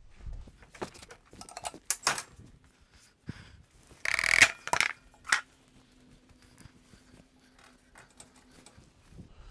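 Metallic clinks, clanks and rattles as the cutting deck of an eXmark zero-turn mower is lowered and handled. The loudest clatter comes about four seconds in.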